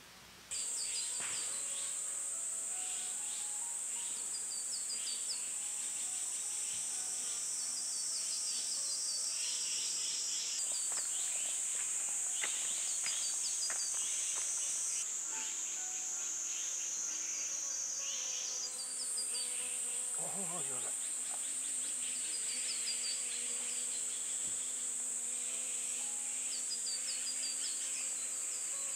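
Loud, steady, high-pitched drone of a summer insect chorus in forest, with short repeated chirps over it. The drone's pitch jumps abruptly about three times.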